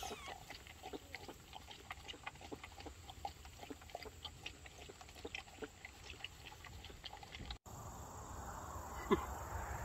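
A dog licking and lapping inside a plastic cup: a quick, irregular run of small clicks that stops suddenly near the end.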